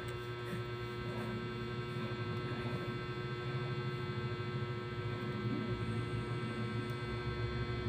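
Steady electrical hum with a set of fixed tones layered over it, unchanging throughout.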